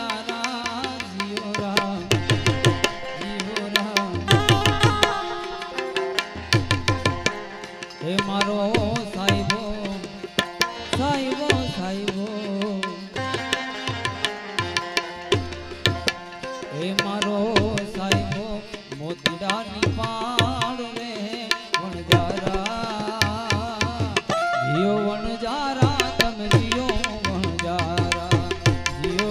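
Indian devotional bhajan music: a tabla plays a rhythmic pattern with deep, bending bass strokes under a wavering melody line.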